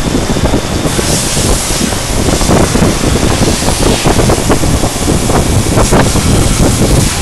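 CNC router spindle cutting acrylic plate: a loud, steady noise with rapid irregular ticking throughout, the hiss growing brighter about a second in.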